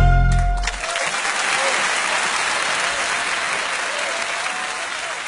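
Stringed-instrument music ends on a held final chord less than a second in, then an audience applauds, the clapping slowly fading.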